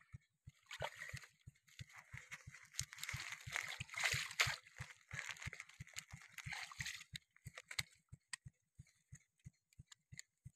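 Shallow water sloshing and splashing as hands work in it, easing off after about 7 seconds into scattered small clicks and rustles. Under it all runs a steady low pulsing of about four or five beats a second.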